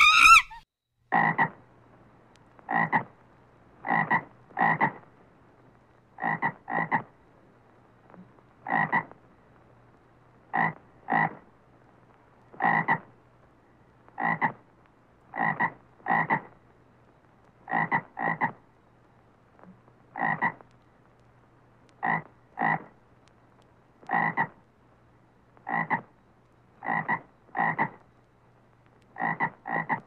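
A toad calling: short croaks repeated every second or two, often in quick pairs.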